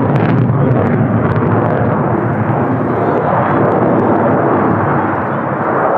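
Loud, steady jet noise from an F-35A Lightning II's single Pratt & Whitney F135 engine, with a few faint sharp clicks in the first second or so.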